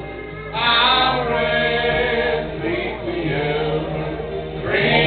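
Gospel singing by a church congregation, a man's voice leading through a microphone and PA while the group sings along. It swells louder about half a second in and again near the end.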